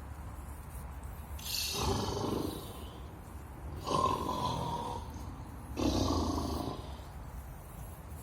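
Snoring from the 'Snoring Giant' art installation: three long, loud snores about two seconds apart.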